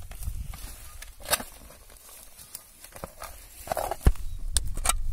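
Shovel digging into weedy soil: the blade crunches and chops through earth and roots in a few separate strikes, with one sharp strike about four seconds in, the loudest, followed by a quicker run of them near the end.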